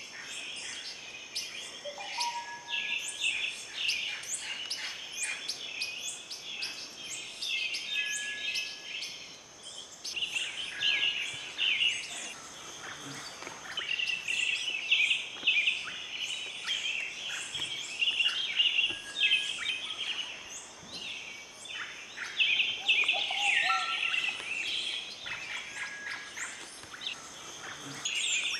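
A dense chorus of many forest birds chirping and twittering together, with a steady high-pitched tone behind it and now and then a short, clear whistled note from another bird.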